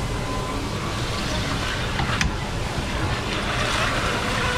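The heavy steel lid of a shrimp cracker press clanking shut about two seconds in, followed by a hiss near the end, over steady street-stall background noise.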